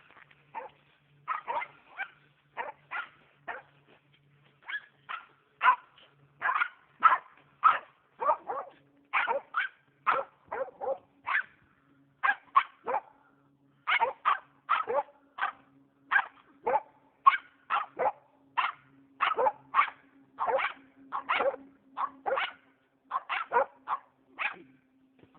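Norrbottenspets barking in a steady, rapid series of sharp barks, about two a second. This is the breed's bark-pointing, the continuous barking it uses to hold and mark game such as a treed squirrel.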